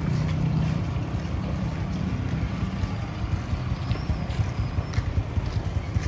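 An engine running with a low, steady rumble.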